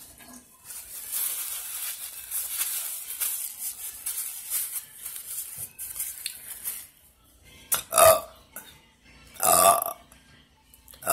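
A woman burping loudly after a meal, three big burps about a second and a half apart near the end. Before them, a few seconds of steady hissing noise.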